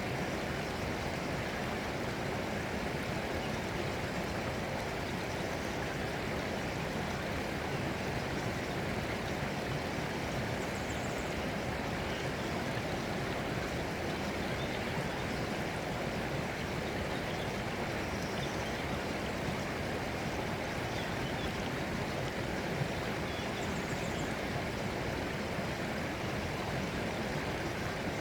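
Steady running water of a stream, an even, unbroken rushing.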